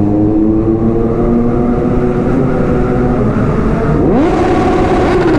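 Kawasaki Z900 inline-four engine pulling steadily inside a road tunnel, its pitch slowly climbing, then about four seconds in a sharp rev that rises quickly and falls back.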